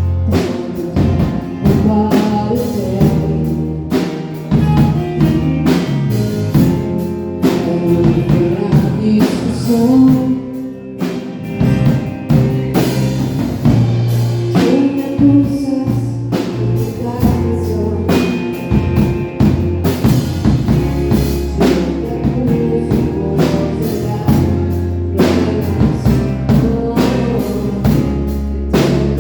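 A song playing with a steady drum-kit beat, bass and a singing voice.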